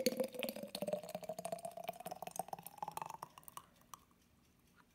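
Thick blended red chile sauce pouring from a blender jar into a glass mason jar: a gurgling pour whose pitch rises steadily as the jar fills, stopping about three and a half seconds in.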